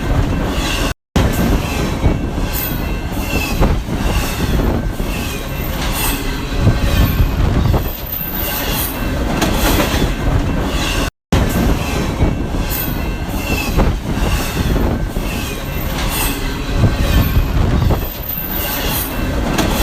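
Train cars rolling past with a steady rumble, the wheels clacking over rail joints in a regular repeating rhythm and giving short high-pitched squeals. The sound cuts out briefly twice.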